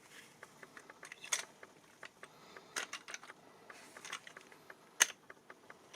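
Light clicks and rattles of a spring airsoft revolver being handled, with its cartridge shells dropping out of the swung-out cylinder; the sharpest click comes about five seconds in.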